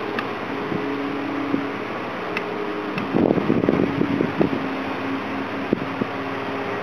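A steady mechanical hum with a hiss, like a fan or ventilation unit, with a few bursts of wind on the microphone about three to four and a half seconds in.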